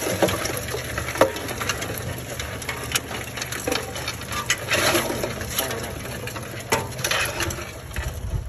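A pile of live crawfish shifting and clattering in a sorting tray, their shells making scattered sharp clicks amid a wet rustle, over a steady low hum.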